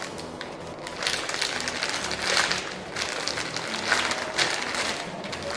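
Clear plastic packaging bag around a squishy toy crinkling as it is handled and turned in the hands, in irregular rustling bursts.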